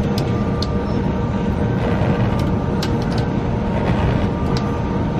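Steady low rumble with a constant machine hum on a sailing ship's deck, over which ropes and rigging give scattered short clicks and creaks as lines are hauled by hand.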